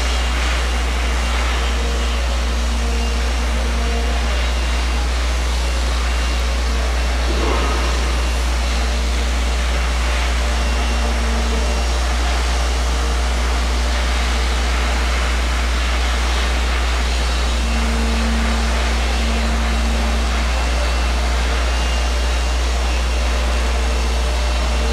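Steady low rumble with a faint machine hum that fades in and out every several seconds.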